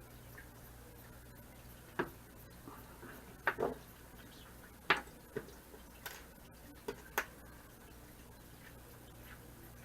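Scattered light clicks and taps, about eight over several seconds, from small objects being handled during leatherwork, over a steady low hum.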